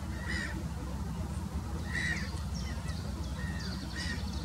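Black-headed gulls giving a few short, harsh calls, about one every second or two, over a steady low background noise.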